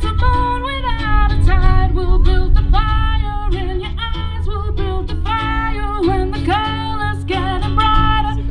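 Live music from a small outdoor stage: a voice singing long held notes over guitar accompaniment, amplified through a PA, with a heavy bass underneath.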